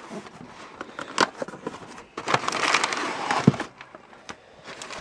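Packing paper rustling and crinkling as it is pulled out of a cardboard box, with scattered clicks and a louder stretch of crumpling about halfway through.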